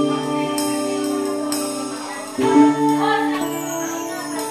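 Live band music: held keyboard and electric guitar chords with a cymbal struck about once a second, the chords changing about two and a half seconds in.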